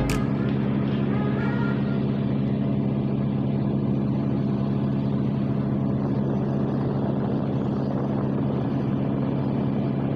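Steady low drone of a large passenger ship's engines heard on the open deck: a constant hum with a rushing noise over it.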